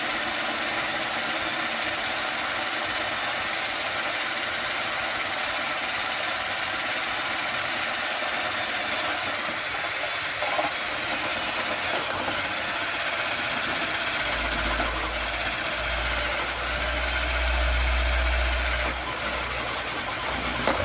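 Tramontina 10.8 V cordless drill driver running under load, a 20 mm spade bit boring into a thick wooden beam with a steady motor and cutting noise. A deeper rumble joins about 14 seconds in, heaviest around 18 seconds, and the drilling stops abruptly near the end.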